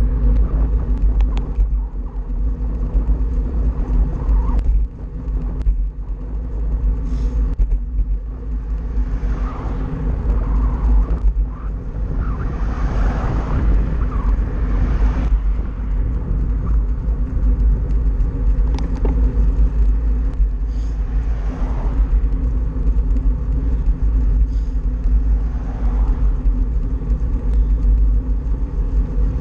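Wind buffeting the microphone of a handlebar-mounted action camera on a moving road bike, a heavy, steady rumble with a steady hum under it. A car passes in the other lane about halfway through.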